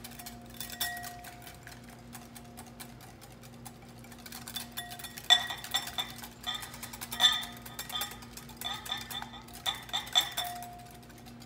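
Wire balloon whisk beating egg yolk and oil in a glass mixing bowl to emulsify mayonnaise: a rapid run of light ticks of the wires against the glass, turning into louder clinks with the bowl ringing from about halfway through.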